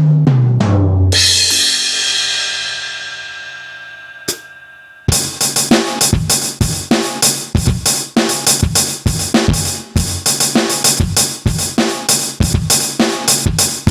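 Aroma TDX-15S electronic drum kit played: a short tom fill falling in pitch, then a crash cymbal that rings and fades for a few seconds. From about five seconds in, a steady beat on kick, snare and hi-hat.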